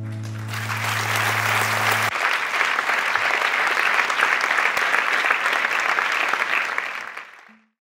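A theatre audience applauding, swelling about half a second in, over the last held low note of the accompanying music, which cuts off about two seconds in. The applause then fades out near the end.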